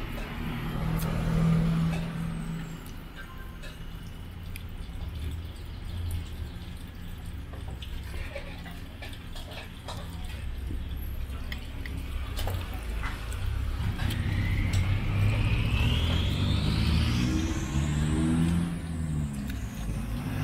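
Road traffic with vehicle engines running. From about two-thirds of the way in, an engine grows louder with its pitch rising and falling, as a vehicle passes close, along with a rising whine. Scattered short clicks.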